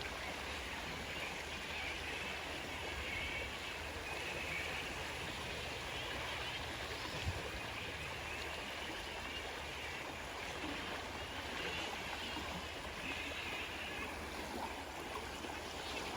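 Steady rushing of a flowing river, with crickets chirping in patches over it. A single soft click about seven seconds in.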